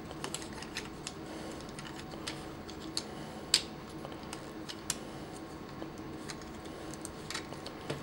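Small plastic clicks and taps as hands work the head piece onto a Mastermind Creations Felisaber transforming-robot figure, with a few sharper clicks around the middle.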